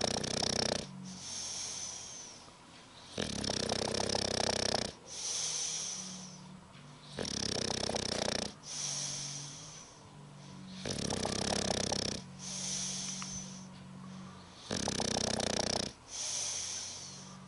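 English bulldog snoring in a slow, even rhythm: a loud rattling snore about every four seconds, five in all, with a quieter high whistling wheeze between them.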